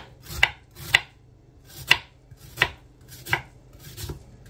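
Knife dicing an onion: about six separate chopping strokes, unevenly spaced roughly every half second to second.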